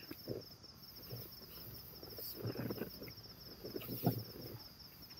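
Crickets chirping in a steady rapid pulse, with blankets and bedding rustling inside a tent as someone pulls a blanket over themselves, the rustles coming in a few bursts.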